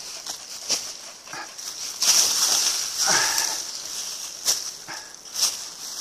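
Footsteps crunching and brush rustling on a steep woodland descent, with sharp snaps of twigs and leaf litter. There is a louder burst of rustling about two seconds in. A few short vocal sounds are mixed in, one about three seconds in dropping in pitch.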